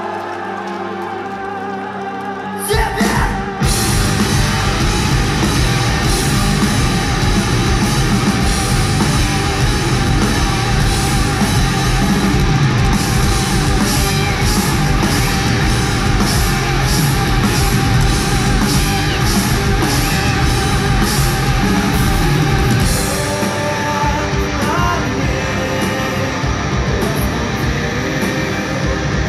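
Metal band playing live: a quieter opening, then the full band comes in suddenly about three seconds in with heavy distorted guitars, drums and vocals. The low end thins out about six seconds before the end.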